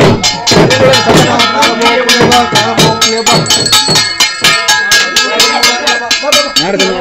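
Fast, steady percussion, about six strikes a second, with a bright metallic ringing over the beat.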